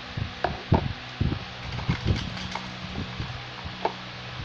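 Scattered short knocks and rustles of a hand handling a plastic bowl of crushed Pringles close to the microphone, over a steady low hum.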